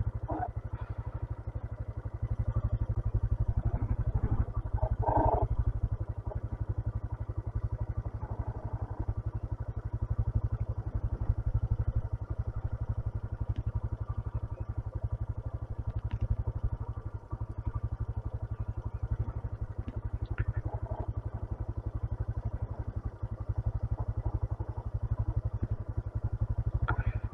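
A 125cc motorcycle engine running steadily with a low, even rumble.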